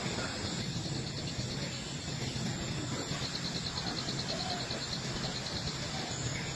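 Insect trilling in rapid, even pulses, clearest in the middle, over a steady background hiss.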